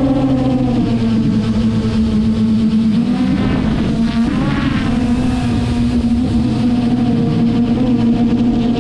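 Traxxas Aton quadcopter's motors and propellers in flight: a loud, steady buzzing hum whose pitch drops slightly about half a second in and wavers up and down in the middle as the drone manoeuvres.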